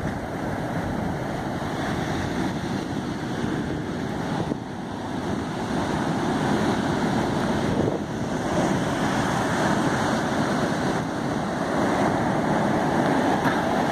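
Ocean surf breaking and foam washing up a black sand beach: a steady rush of water that grows a little louder in the second half.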